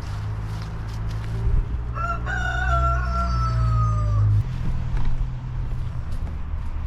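A rooster crows once, a single drawn-out call of about two seconds that sags slightly in pitch toward its end. A steady low hum runs underneath and stops about four seconds in.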